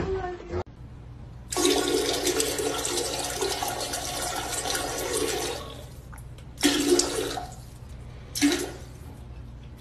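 A toilet flushing: a rush of water lasting about four seconds, then two shorter bursts of noise.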